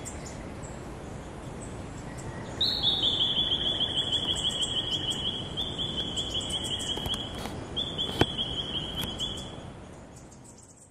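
Outdoor ambience with a high, rapid trilling call from a wild animal, heard three times, each trill two to three seconds long and falling slightly in pitch. There is a single sharp click about eight seconds in, and the sound fades out at the end.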